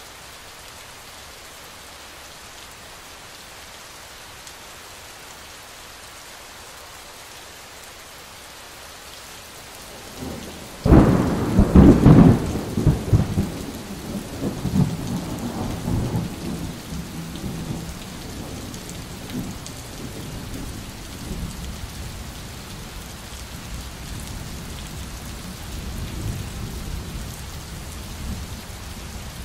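Steady rain falling, then about eleven seconds in a sudden loud thunderclap that rolls into rumbling thunder over several seconds. A lower, uneven rumble continues under the rain afterward.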